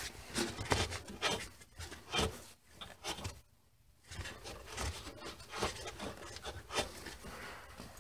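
A shop rag rubbing and scraping over a brake hose fitting and the metal brake lines around it, with small irregular knocks and scuffs and a brief lull a little before halfway.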